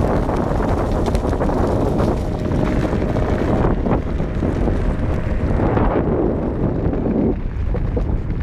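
Loud wind buffeting the camera microphone of a rider moving at speed on an electric off-road skateboard. It eases about seven seconds in as the board slows.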